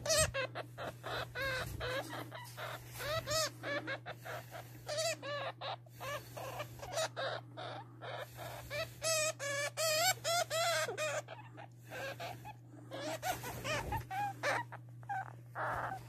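Hamster squeaking: a quick string of short squeaks that rise and fall in pitch, with brief pauses between runs, over a low steady hum.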